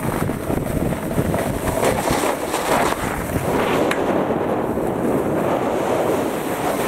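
Wind rushing over a handheld camera's microphone as a steady rough noise, with a couple of faint clicks.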